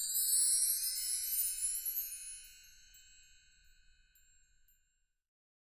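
A bright chime-like sound effect, several high ringing tones with a shimmering upward sweep, strongest at first and then fading away, gone about five seconds in.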